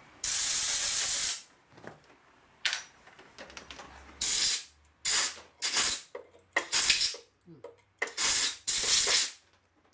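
Compressed-air blow gun on a coiled air hose, fired in short hissing blasts to blow chips and debris out of freshly tapped bolt holes in an aluminium Harley-Davidson engine case. One blast of about a second comes first, then about six shorter ones in the second half.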